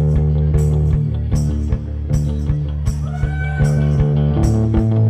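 Amplified electric guitar playing a repeating picked figure over ringing low strings, while a tuning peg is turned to bring one string to D; about three seconds in a higher note bends upward and holds.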